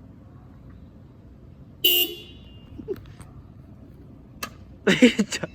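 A car horn gives one short honk about two seconds in. Another loud burst of sound follows near the end.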